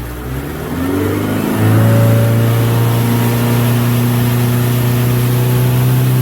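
Motorboat engine throttling up, its pitch rising over the first two seconds or so, then running steady and loud at speed.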